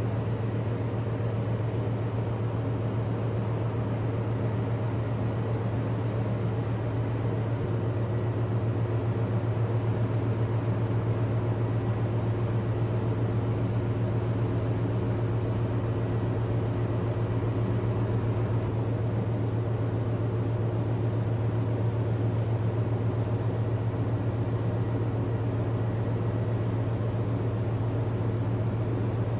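Steady low drone of a large container ship's engines and machinery as it passes, heavy around the bass, with fainter steady tones above it.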